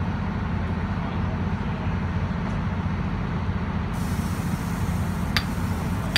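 Drilling rig machinery running, a steady low engine drone, with a single sharp metallic clank near the end.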